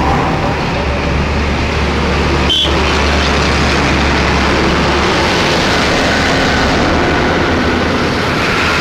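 A procession of diesel tractors driving past one after another, engines running with a steady low drone that is strongest in the first half as the nearest tractor goes by.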